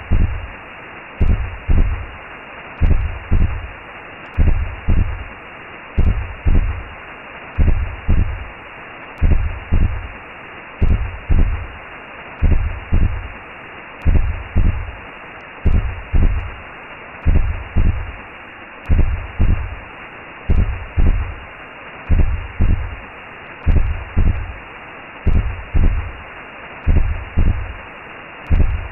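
Recreated womb sound: a steady, muffled whooshing hiss with a slow heartbeat pulsing through it as a low double thump about every second and a half.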